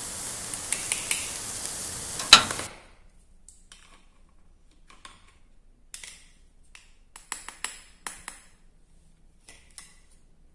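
A steady hiss, with a sharp click just before it cuts off abruptly about two and a half seconds in. Then scattered light clicks and taps of toy plastic utensils: a plastic spoon against a toy pot and plate, busiest a little past the middle.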